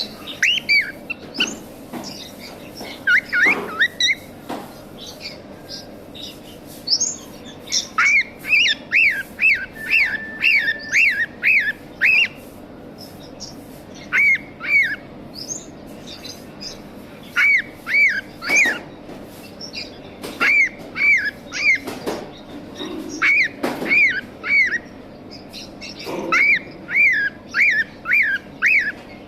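Cockatiels calling: runs of two to seven short, sharp chirps in quick succession, repeated every few seconds, with fainter chirping from other birds in between.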